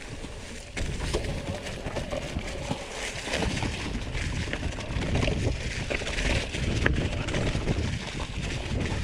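Mountain bike riding down a trail covered in dry fallen leaves: the tyres crunch and rustle through the leaves over a low rumble, with many quick clicks and rattles from the bike on rough ground. It gets louder a little under a second in.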